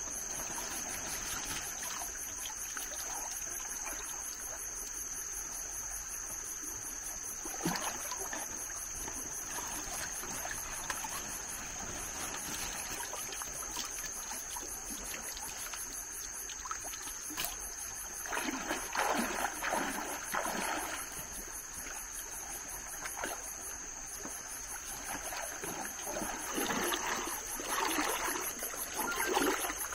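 Steady high-pitched insect chorus, with splashing and sloshing water as a hand net is swept and lifted through a shallow stream and feet wade in it, in bursts about two-thirds of the way through and again near the end.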